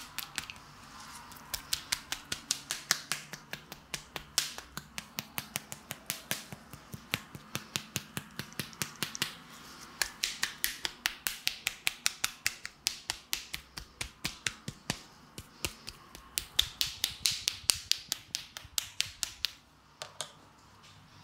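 Hands slapping and patting wet, lathered skin on a man's chest and belly in a quick, steady rhythm, about four or five sharp smacks a second, with short breaks about four and nine seconds in, stopping just before the end.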